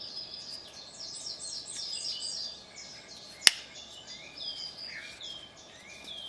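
Birds chirping and singing in quick repeated high notes and short falling whistles, with a single sharp click about three and a half seconds in.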